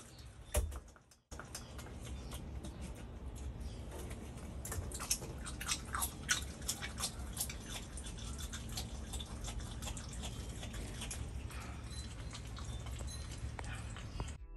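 Virginia opossum chewing food, a steady run of wet, squeaking eating clicks and smacks, broken by a brief gap about a second in.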